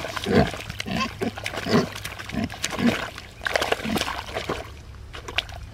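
Kunekune pigs grunting in short, irregular bouts as they wallow, with wet mud sloshing and squelching under them; the sounds die down near the end.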